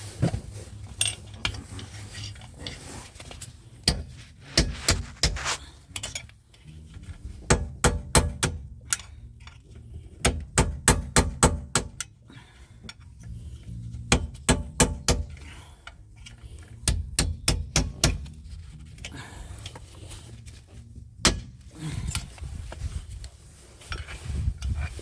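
Metal hand tools clinking and knocking on metal in several quick runs of sharp strikes, about four or five a second, with quieter pauses between, during work on a car's wheel hub.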